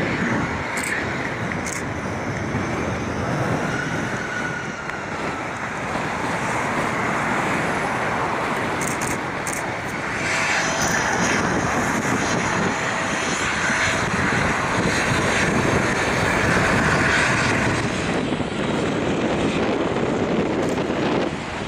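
Boeing 737-700's CFM56-7B turbofan engines running as the jet taxis close by: a dense jet rumble with a faint turbine whine, growing louder about ten seconds in.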